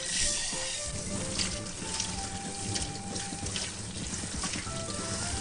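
Kitchen tap running, water splashing through a mesh strainer into a stainless steel sink. Light background music plays over it.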